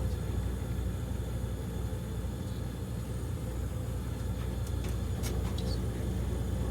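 Steady low buzz from the solenoid of an old Bryant heater's gas valve, running on its 25-volt AC transformer supply, with a few light clicks about five seconds in. The owner ties this noise to the AC power supply.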